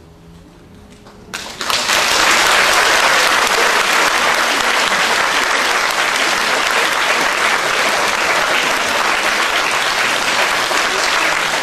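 A faint lingering note dies away, then about a second and a half in a concert audience breaks into applause, which continues steadily and loudly.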